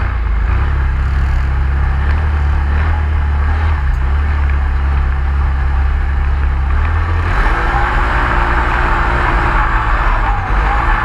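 A vehicle engine running with a steady low drone. About seven seconds in the sound changes: the low drone drops back and a rougher, higher noise rises, with a faint steady whine.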